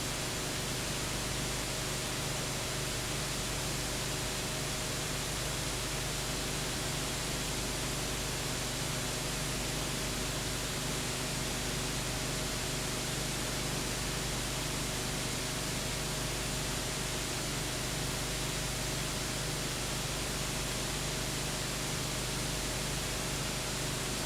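Steady hiss with a low hum underneath and no other sound: the background noise of a silent old film transfer.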